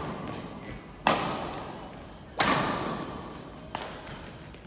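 Hits of a rally echoing in a large hall: three sharp strikes about 1.3 seconds apart, each ringing out before the next.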